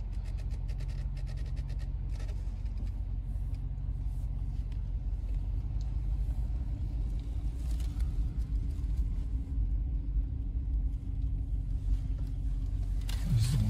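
A truck driving slowly, its engine and tyres making a steady low rumble heard from inside the cab.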